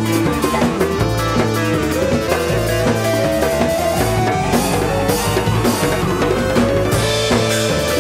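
Live rock-funk band playing an instrumental passage: drum kit keeping a steady beat under electric bass, electric guitar and keyboards.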